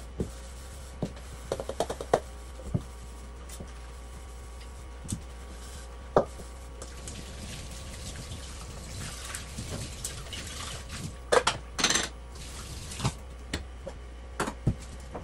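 Hand-washing dishes at a stainless-steel kitchen sink: aluminium pots and pans clink and clatter against the sink and each other, with water splashing from the tap. The loudest clatter comes a little past the middle, over a steady low hum.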